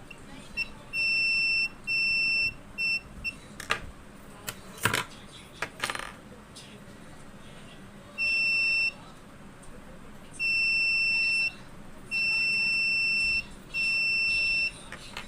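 Piezo buzzer of a homemade laser tripwire alarm beeping in one high steady tone, in uneven bursts from a fraction of a second to over a second long, as the laser beam on the light sensor is broken and restored. A few clicks and knocks fall between the beeps about four to six seconds in.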